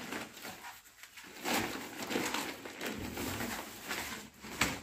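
Plastic shopping bags rustling and crinkling on and off as groceries are taken out of them, with a sharper crackle near the end.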